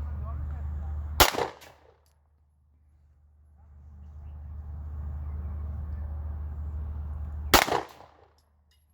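Glock pistol firing two single shots about six seconds apart, each a sharp loud crack with a short ringing tail, over a low steady hum.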